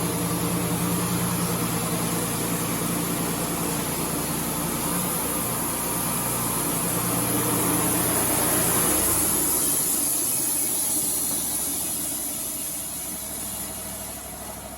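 Wood-Mizer LT35 portable band sawmill running, its engine humming steadily along with the band blade. About nine seconds in the engine note drops, and the sound then eases down toward the end.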